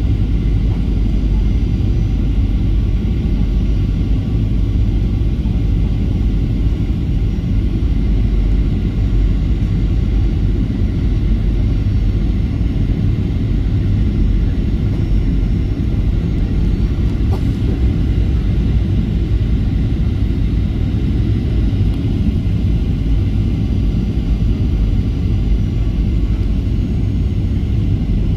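Steady cabin noise of a Boeing 737-800 on final approach, heard from a seat over the wing: its CFM56-7B engines and the airflow make an even, mostly low-pitched roar with no breaks.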